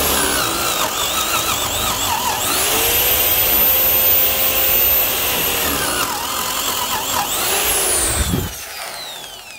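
Metabo HPT D10VH2 800-watt corded drill boring into a wood block with a 3/4-inch installer's bit. The motor's whine sinks as the bit bites and climbs again as it frees up, then falls away as the drill spins down near the end.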